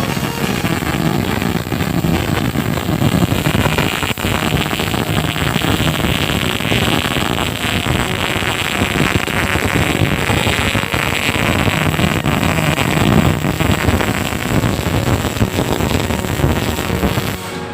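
MIG welding arc crackling: a dense, steady sizzle of fine rapid crackles that cuts off near the end.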